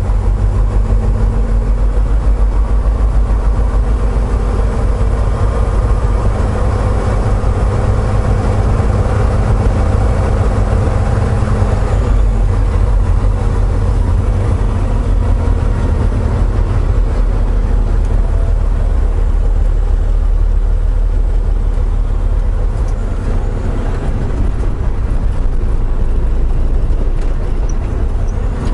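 Semi-truck's diesel engine running, a steady low rumble with a faint whine that stops about twelve seconds in.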